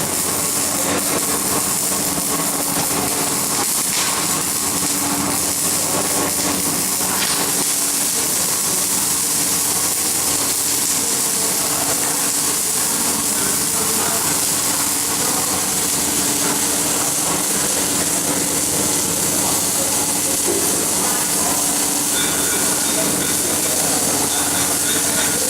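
Electric arc welding: a steady, unbroken hiss from the arc with a steady hum beneath it.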